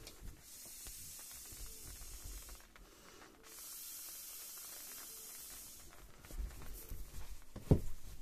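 A large balloon being blown up by mouth: long hisses of breath going into it, with a short pause at the start and another about three seconds in. Near the end the balloon skin is handled, with rubbing and one loud low thump.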